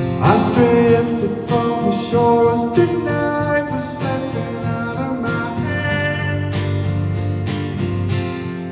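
Live acoustic guitar strumming with a man singing over it, heard through a concert hall's sound system.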